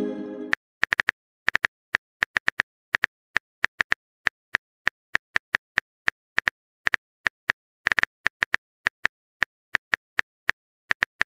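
Phone keyboard typing sound effect: a run of short sharp clicks, about three to four a second and unevenly spaced, as the next text message is typed. It opens with the fading tail of a message-sent chime.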